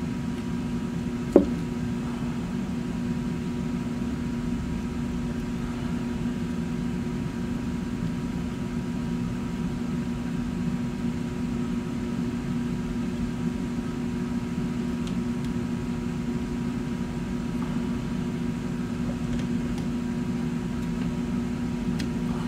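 Steady room hum, an even low drone with a faint hiss, and one short click about a second and a half in.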